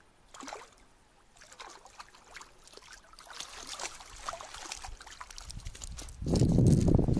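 A hooked grayling splashing and thrashing in shallow water at the shoreline. Near the end comes a louder crunching of pebbles as it comes up onto the stony bank.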